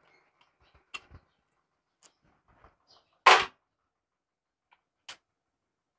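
Scattered light metallic clicks as a hex key and a motorcycle throttle body are handled over a metal parts tray. One short, louder clatter comes a little past halfway.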